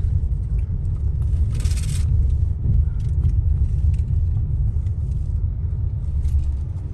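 Steady low rumble of a car being driven, heard from inside the cabin: engine and road noise, with a brief hiss about one and a half seconds in.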